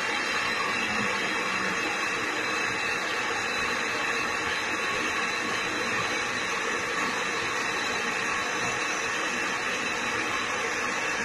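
Handheld gas brazing torch burning with a steady hiss as its flame heats a brass valve fitting on a refrigeration compressor's copper tube.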